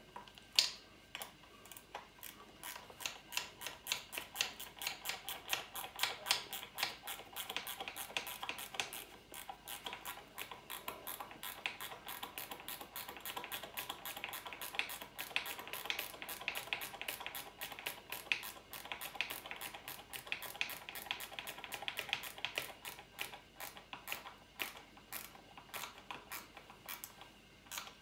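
Rapid metallic ratcheting clicks, about four a second in runs with brief pauses, from a ratchet being worked on the motorcycle's radiator mounting.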